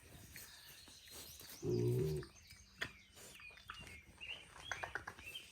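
A Duroc feeder pig gives one short, low grunt about two seconds in, the loudest sound here. Birds chirp faintly in the background, with a few small clicks.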